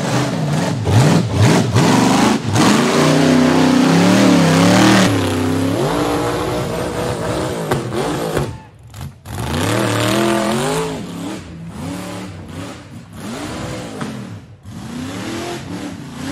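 Rock bouncer buggy's engine revving hard as it climbs a steep rock face, its pitch swinging up and down with each stab of throttle. It drops off briefly about nine seconds in, then comes back in a string of shorter rising-and-falling rev bursts.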